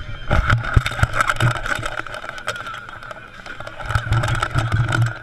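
Spectator crowd noise in a ski-race grandstand, a steady din running throughout. Low rumbling bumps and clicks come from the wearable camera being moved and buffeted, heaviest in the first second and again from about four to five seconds in.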